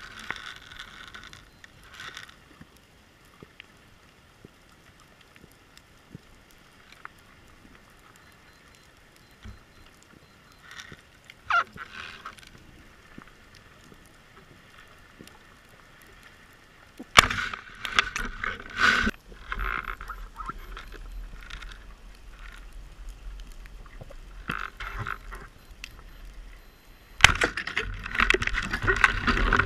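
Underwater sound from a diver's camera: a faint crackle of small clicks, broken twice, about halfway through and again near the end, by loud rushing, knocking stretches with a low rumble that start suddenly.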